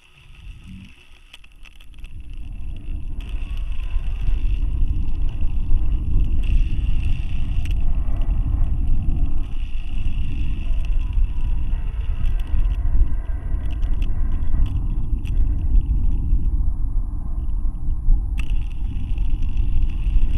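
Dense, fluttering low rumble of wind and vibration on the balloon payload's onboard camera microphone, building over the first few seconds and then holding steady. A fainter higher hiss rides above it and cuts out for a couple of seconds near the end.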